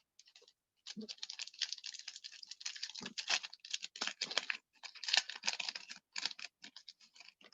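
Trading cards and a pack wrapper being handled: a quick, irregular run of clicks and crinkles as a pack is opened and the cards are sorted.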